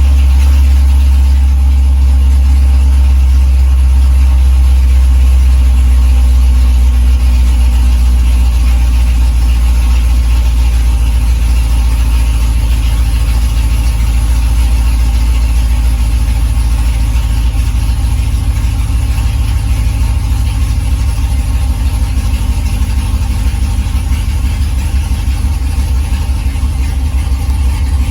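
Chevrolet Corvette Z06's supercharged 6.2-litre V8 idling steadily just after start-up, a deep even rumble that eases slightly in the second half.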